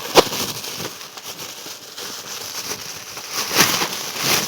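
Plastic parcel packaging being handled and opened, crinkling and rustling, with a sharp snap just after the start and louder rustling near the end.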